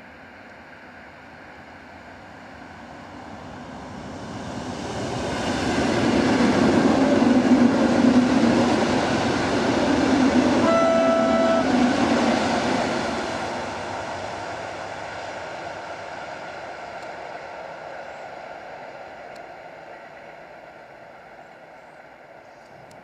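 Koleje Mazowieckie commuter train approaching, passing close by and fading into the distance, loudest for several seconds in the middle. A short horn note of about a second sounds about halfway through.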